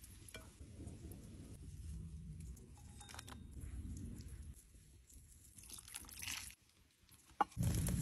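Faint crunching and handling sounds as fish steaks and garlic cloves are laid into an unglazed clay pot, with scattered small clicks. Near the end comes a single sharp knock, then a louder low rumbling noise.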